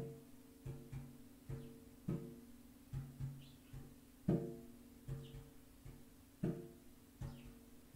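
A drum beats a slow, even rhythm, with a stronger stroke about every two seconds, over the steady ringing hum of a singing bowl.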